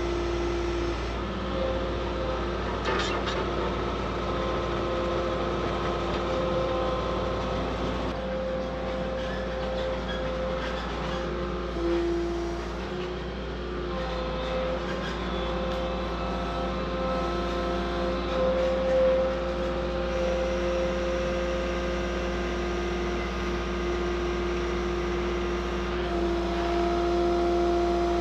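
Kato CL35 compact track loader's diesel engine running steadily under load as it carries and lowers a log, with a steady hum whose pitch shifts about halfway through and again near the end.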